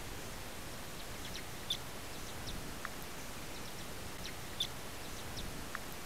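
Common redpolls giving short, high chip calls over a steady background hiss, the two loudest about two seconds and four and a half seconds in, with a few fainter notes between.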